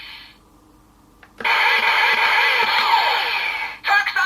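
Electronic sound effects and voice from a Kamen Rider Drive Viral Core toy through its small speaker: a click about a second in, then a loud noisy effect with falling sweeps, and a synthesized voice starting just before the end.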